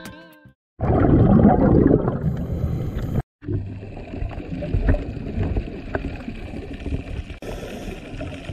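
Underwater ambience picked up by an action camera's microphone over a sandy seabed: a dull rushing water noise with a few faint ticks. It is loudest for the first couple of seconds, drops out briefly, then carries on more quietly. Background guitar music fades out at the very start.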